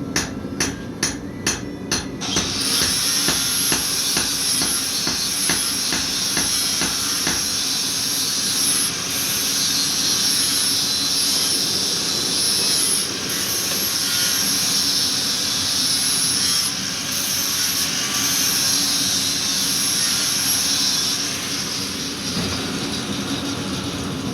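Several quick hammer blows on metal, about three a second, then an angle grinder grinding steel with a steady high hiss that dips briefly now and then.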